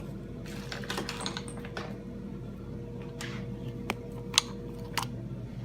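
Scattered light clicks and knocks from tools and seat parts being handled, the sharpest one about four and a half seconds in, over a steady low hum.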